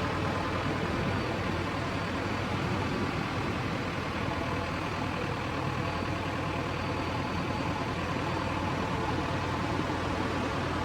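Diesel engine of a JCB 3DX backhoe loader running steadily at an even speed, with a constant low hum and no change through the stretch.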